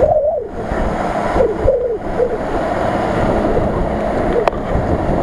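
Nissan Patrol SUV driving through shallow floodwater: its tyres churning and splashing the water steadily, with its engine running underneath.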